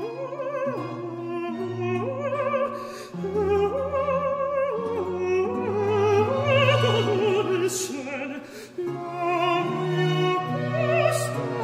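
Background music: an operatic voice singing long notes with wide vibrato over an orchestral accompaniment.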